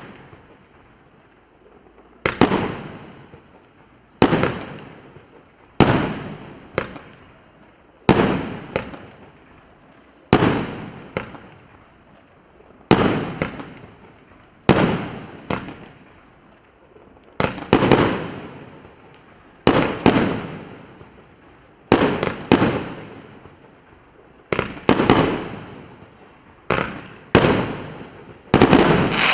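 A 25-shot consumer firework battery (cake) firing its shots one after another, a sharp bang about every two seconds. Each bang has a fading tail, often with a second smaller crack just after it.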